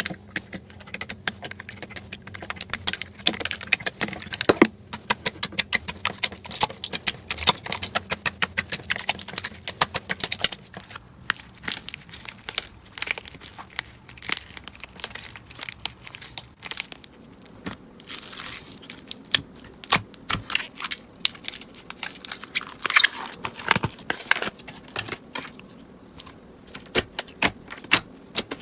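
Slime being squeezed and pressed by hand, giving dense runs of sharp clicking and crackling pops.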